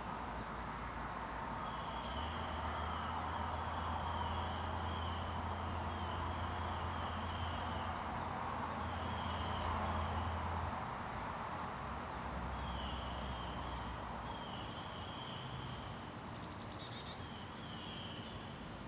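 Rural outdoor ambience: a chirping call repeating in short trilled phrases throughout, with the low rumble of distant traffic coming and going. A couple of brief high bird chirps stand out, the clearest about two-thirds of the way in.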